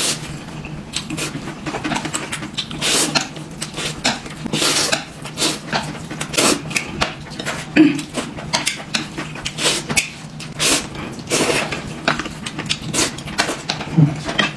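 Close-up eating sounds: irregular smacking and chewing, with occasional clinks of dishes and cutlery.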